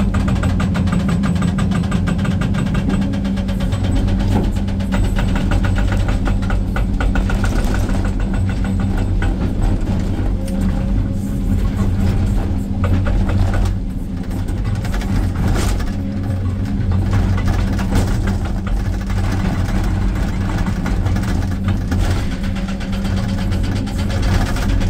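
Excavator-mounted hydraulic rock breaker hammering rock in a rapid, steady stream of blows, over the excavator's diesel engine running, heard from inside the cab.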